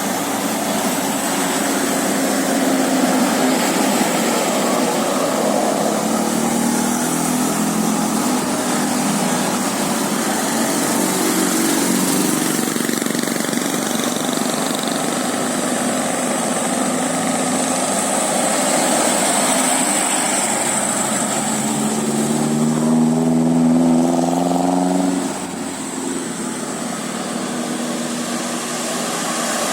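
Bus engine running, its pitch climbing twice as it revs, most strongly near the end before falling away suddenly.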